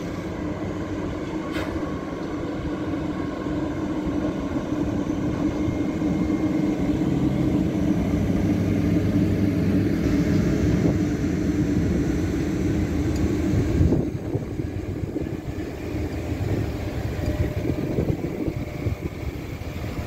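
SNCF BB 22200 electric locomotive pulling a train of Corail coaches slowly away, with a steady hum from its motors and cooling fans. This gives way to the rolling and knocking of the coaches' wheels on the track.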